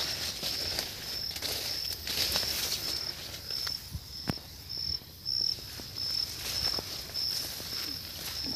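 An insect chirping in a steady high pulse about twice a second, over rustling and a few sharp clicks.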